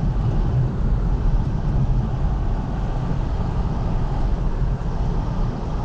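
Car driving on a snow-covered road, heard from inside the cabin: a steady low rumble of road, tyre and engine noise.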